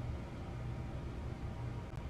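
Room tone: a steady low hum with a faint even hiss, and no distinct event.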